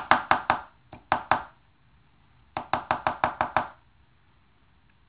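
Small bottle of RC silicone shock oil being shaken hard by hand, giving quick sharp knocks at about five a second in short bursts, with a longer burst near the middle.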